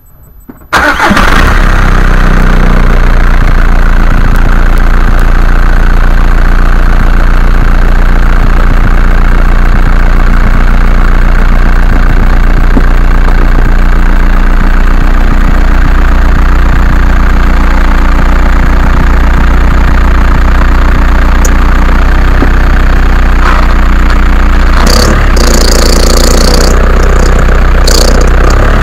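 VW Golf MK4's 1.9 TDI four-cylinder diesel engine starting up under a second in, then running steadily and loudly. A few short hissing noises come near the end.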